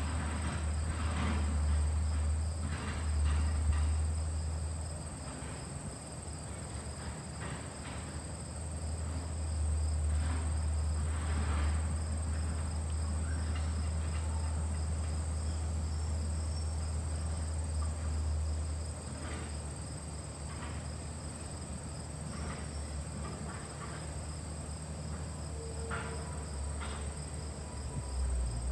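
LG air conditioner's condenser unit running with a low hum that swells and eases, with a chorus of crickets chirping at a steady high pitch.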